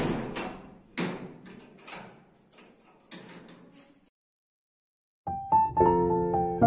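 A metal sliding door bolt worked and a padlock fastened on it: several sharp metallic clacks with a short ring over the first four seconds. After a brief silence, background piano music begins.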